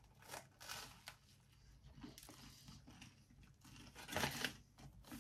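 Biting and tearing into a crusty baguette, then chewing the mouthful: a series of short, faint crackly crunches of the crust, the loudest just after four seconds in.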